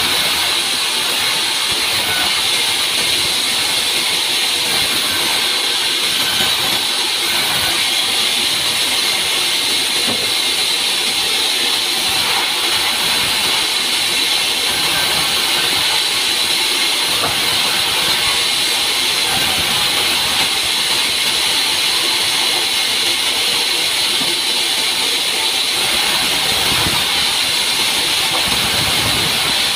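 Large vertical log band saw ripping a log into planks: a loud, steady hissing whine.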